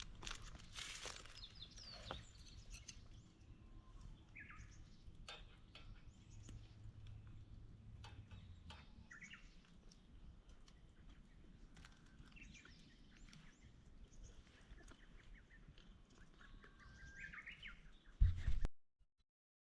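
Faint, scattered chirps of small birds over quiet outdoor ambience, with occasional faint clicks. Near the end comes a short low thump, then the sound cuts off abruptly.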